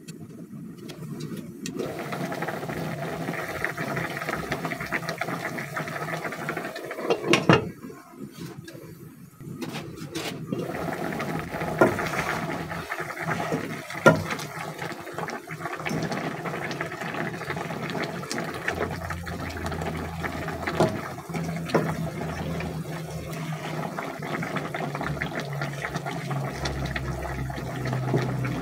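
Catfish adobo bubbling at a simmer in a pot, with a glass lid clattering off about seven seconds in. A spatula then stirs the fish in the sauce, knocking a few times against the pot.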